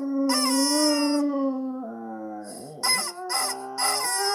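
Husky howling and "talking": a long held call that drops in pitch about two seconds in, then several shorter wavering calls.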